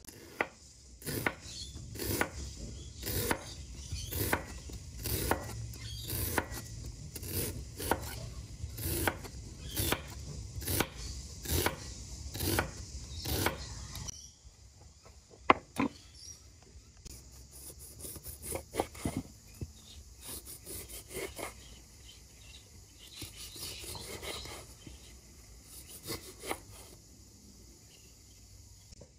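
Chef's knife slicing an onion on a wooden cutting board: a steady run of knocks, about two a second, as the blade goes through and meets the board. After about 14 s this stops abruptly and gives way to quieter, irregular knocks and scraping on the board.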